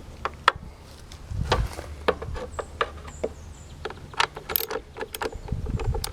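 Irregular metallic clicks and clinks of hand tools and bolts being worked on a small engine's sheet-metal cover, over a low steady hum.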